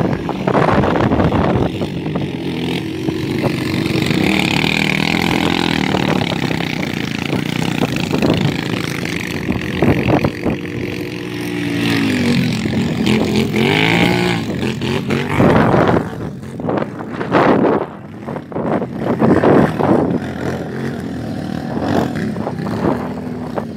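Quad bike (ATV) engine revving as it climbs a steep sand dune, its pitch rising and falling several times in the middle. Choppy bursts of noise take over in the last several seconds.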